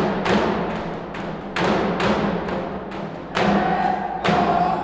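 Background music with heavy percussion: hard drum hits about two a second over a sustained low note, and a higher held note entering about three and a half seconds in.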